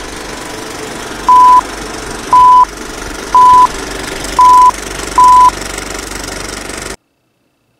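Old-film countdown leader sound effect: a film projector clattering steadily, with five short high beeps about a second apart, one for each countdown number. It all cuts off suddenly about seven seconds in.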